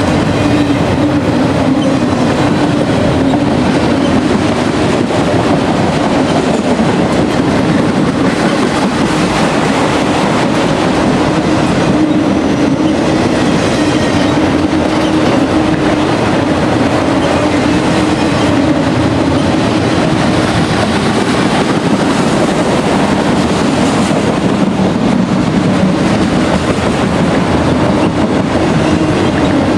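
Freight train rolling past close by: steel wheels clicking steadily over the rail joints, with a continuous rumble and a steady droning tone.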